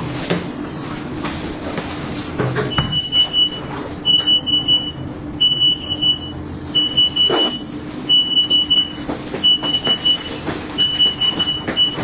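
An electronic beeper going off in groups of rapid high beeps, one group about every second and a half, starting about three seconds in, over a steady low hum and a few clicks.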